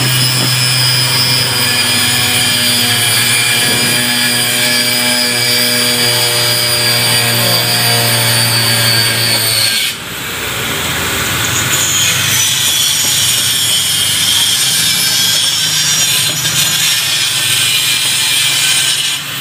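Metal scraper rasping against a diamond-plate steel door, stripping off old red paint. A steady low hum runs under it for the first half, then stops at a break about halfway.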